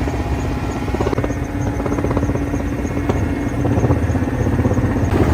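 Helicopter running, with a rapid rotor beat.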